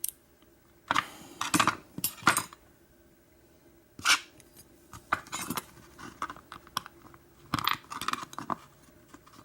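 Small metal parts of a gutted American 1100 padlock and its keys being handled: bursts of short clinks and rattles against each other and a hard surface, with pauses between.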